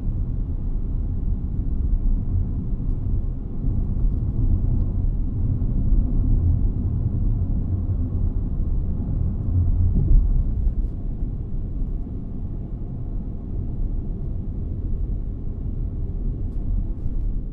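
Steady low road and engine rumble inside a car's cabin while it drives along a highway.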